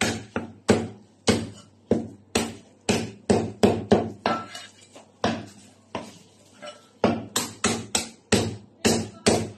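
Chinese cleaver chopping a salt-baked chicken through the bone on a round wooden chopping block: a quick run of sharp chops, about three a second, with a short pause a little past the middle.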